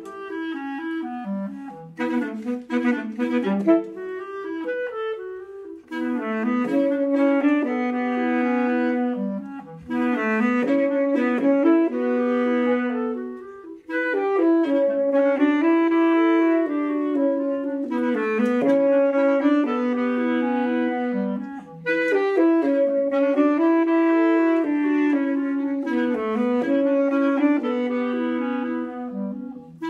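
Clarinet and saxophone duo playing live, two lines weaving together. Short detached notes in the first few seconds, then longer phrases with held notes that break off briefly about 14 and 22 seconds in.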